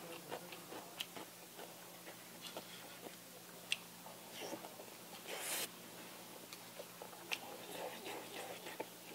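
A person eating, close-miked by a clip-on mic: wet chewing and mouth noises while biting into a dumpling and spoonfuls of kimchi fried rice, with scattered light clicks of chopsticks and a plastic spoon against a bowl. A sharp click comes a little before the middle and a short breathy rush a little after it.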